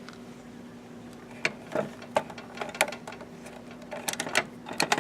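Light clicks and knocks of hands handling cables and parts inside a viscometer, starting about a second and a half in and coming thickest near the end, over a steady low hum.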